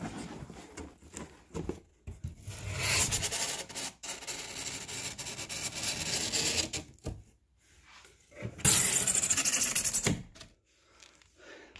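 Cardboard shipping box being opened by hand: the flaps rub and scrape as they are folded back, with a louder rasping scrape about three quarters of the way through.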